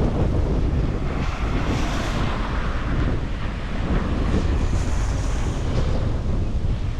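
Strong storm wind buffeting the microphone in a steady low rumble, with the rushing hiss of gusts swelling and easing over it.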